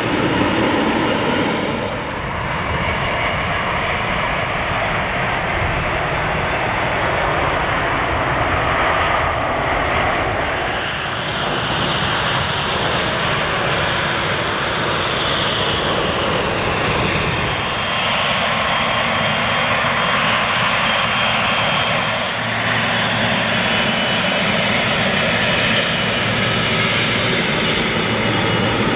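Jet airliner engines running close by as aircraft taxi and land, in a run of short clips whose sound changes abruptly at each cut; one segment is an Airbus A320 touching down on the runway, another a Boeing 777 freighter taxiing.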